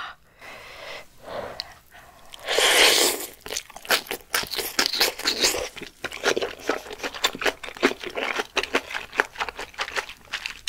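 Close-miked eating: a loud slurp of glass noodles and coriander about two and a half seconds in, then steady chewing with many quick wet mouth clicks.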